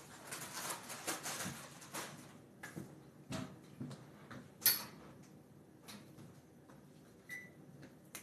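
Crunching and chewing on puffed corn snacks, a dense crackle at first, then scattered clicks, with one sharper click a little past halfway.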